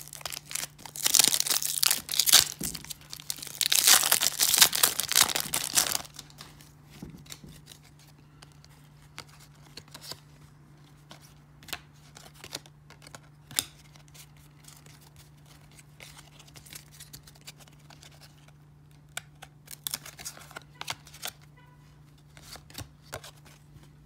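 A 1994 Topps wax pack's waxed paper wrapper is torn open and crinkled in two loud bouts during the first six seconds. After that, quieter scattered clicks and slides of the cardboard trading cards being handled and flipped through.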